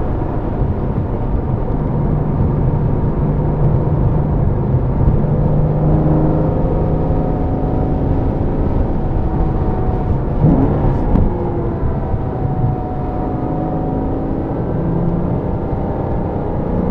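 Porsche Boxster's flat-six engine heard from inside the car on track, its note rising and falling with the throttle through the corners. About ten seconds in, the pitch sweeps quickly up and down, as at a gear change.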